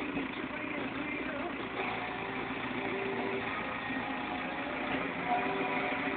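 New Holland TD90D tractor's diesel engine running steadily, heard from inside the cab, with a few faint wavering tones over the engine noise.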